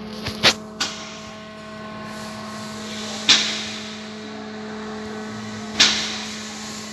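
A steady electrical hum inside a car cabin, with a few sharp clicks: three close together in the first second, another about three seconds in and one near the end.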